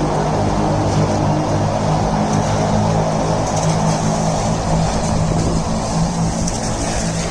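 Steady vehicle drone: an even low engine hum with rolling noise, heard while the vehicle is moving.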